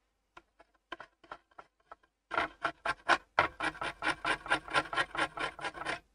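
Glass-fibre pen scrubbing dried superglue off a PS4 Pro circuit board: a few scattered scratches, then from about two seconds in a fast back-and-forth scrubbing of about seven strokes a second.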